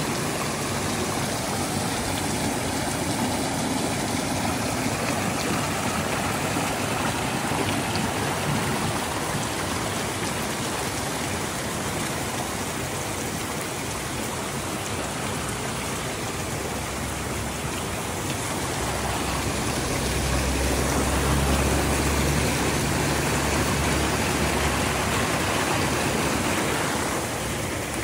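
Small stream rushing steadily down a narrow stone-lined channel. In the second half a low rumble joins the water noise for several seconds, then fades.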